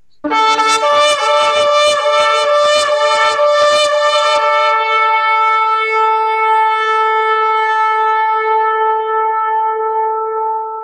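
Shofar blowing: a quick run of short blasts, then one long held blast.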